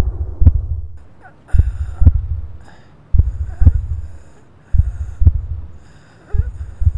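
A slow heartbeat sound effect: paired deep thumps, lub-dub, repeating about every second and a half, with faint higher sounds between the beats.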